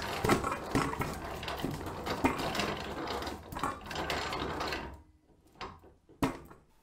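Antique hand-cranked potato peeler being turned: potatoes rattle and scrape around inside its perforated metal drum, with clicking from the crank mechanism. The rattling stops about five seconds in, followed by a couple of short knocks.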